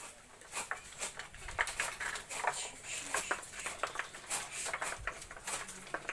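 Wooden thread bobbins clacking against each other and the weaving frame as they are passed over dried oil-palm frond strips to bind them into a curtain. The sound is a quick, irregular run of light clicks and taps.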